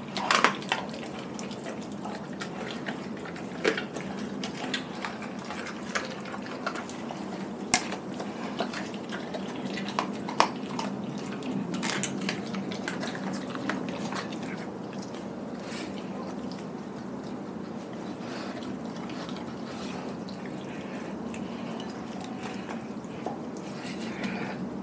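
A Doberman chewing and tearing at a whole raw chicken in a glass bowl: wet smacking and crunching with scattered sharp clicks, most frequent in the first half.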